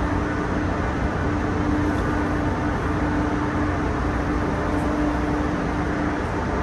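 Steady engine drone with a low hum and a constant tone, unchanging in level.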